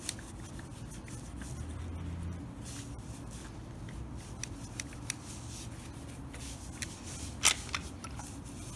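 A cloth rag rubbing and wiping oil off a chainsaw's plastic housing, with scattered light scrapes and clicks as the saw is handled. One sharper click comes about seven and a half seconds in.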